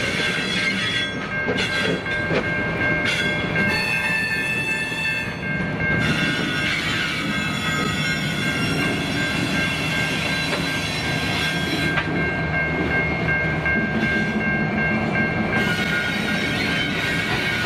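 Diesel locomotives of a grain train rolling slowly past, with a steady high-pitched wheel squeal over the engines' rumble and the clatter of wheels on rail.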